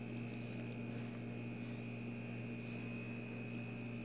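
Faint steady low hum with a thin, constant high tone above it. This is background room tone, and nothing else happens.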